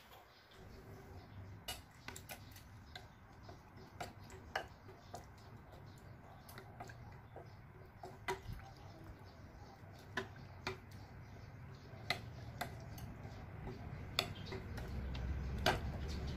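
Plastic spoon stirring slime and water in a glass bowl, knocking against the glass in scattered sharp clicks a second or so apart. A low rumble builds near the end.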